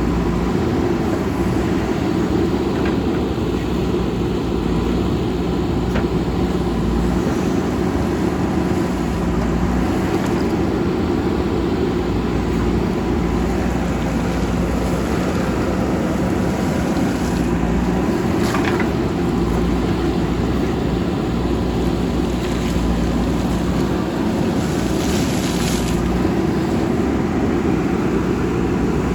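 JCB backhoe loader's diesel engine running steadily under work, with a few faint short clinks over it.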